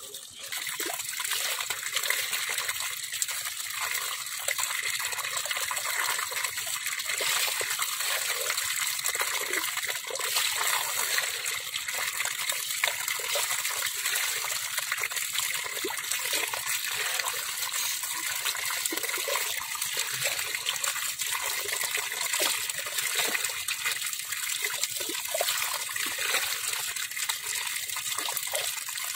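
Water gushing steadily through a narrow cut in a mud dam and pouring into a woven bamboo basket packed with small fish. It swells up about half a second in and then runs on evenly.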